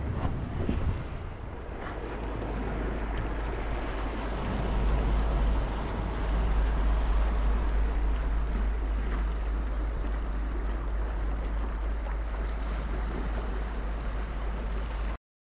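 Sea waves washing over rocks and pebbles along the shoreline, with wind on the microphone as a steady low rumble. It cuts off abruptly near the end.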